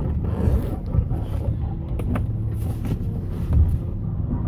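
Steady low rumble of a car driving, heard inside the cabin, with rustling and a few light knocks from the phone being handled.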